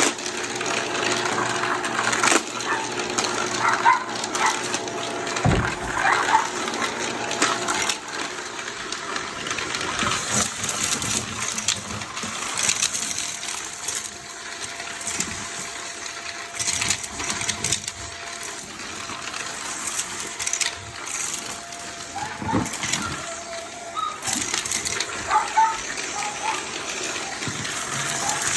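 Vacuum cleaner running during fast vacuuming: a steady hiss of air with a faint motor whine, broken by clicks and knocks as the cleaner head is pushed quickly back and forth.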